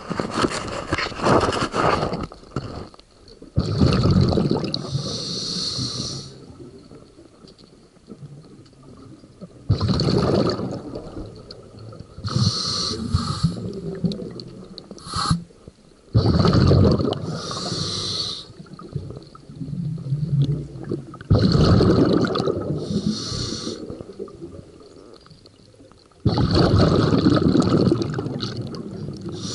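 Scuba diver breathing underwater through a regulator: a hiss of drawn air, then a rush of exhaled bubbles, repeating about every five to six seconds.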